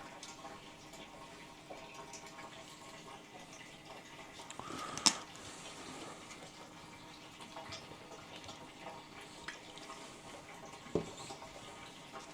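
Water being poured into a potted Hoya, trickling and dripping through the leca-lined pot. A sharp knock about five seconds in is the loudest sound, with a smaller one near the end.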